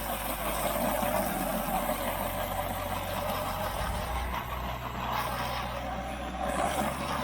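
Garden hose spraying water onto shake-style siding panels to rinse off dirt, a steady hiss of water, with a low steady hum underneath.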